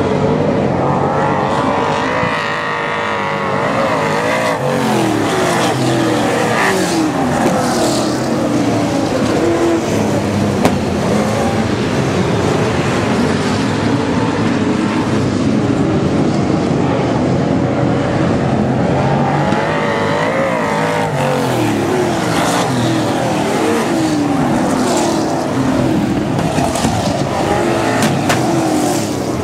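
Several super saloon race cars' V8 engines racing around a dirt speedway oval, revving up and down through the turns. The sound swells twice as the pack goes by, a few seconds in and again about twenty seconds in.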